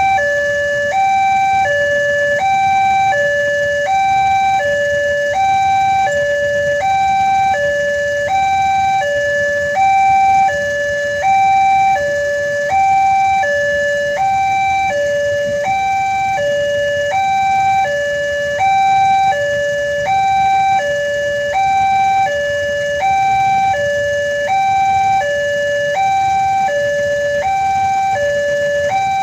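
Railroad level-crossing warning alarm sounding continuously, an electronic two-tone signal alternating between a higher and a lower tone, each held for under a second. It warns that a train is approaching and the crossing barriers are closed or closing.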